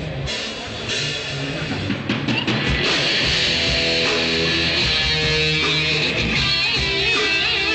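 Live rock band of electric guitars and drum kit playing through the stage PA. Loose hits and notes at first, then the full band comes in louder about three seconds in.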